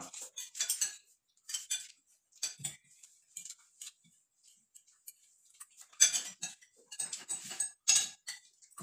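Spoons and forks clinking and scraping on dinner plates as several people eat, in irregular short clicks with the loudest clusters about six and eight seconds in.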